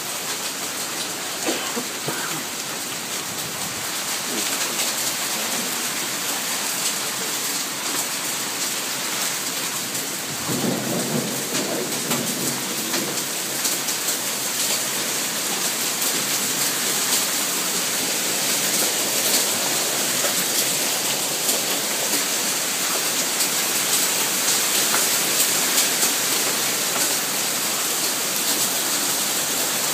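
Hail and heavy rain pelting down: a dense, steady clatter of many small impacts, slowly growing louder, with a low rumble about ten seconds in.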